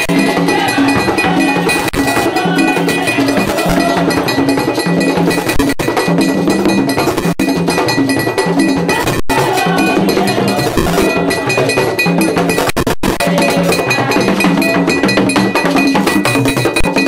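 Haitian Vodou ceremonial music, loud and continuous, led by a clanging metal bell of the cowbell kind, with other percussion and possibly a group singing along.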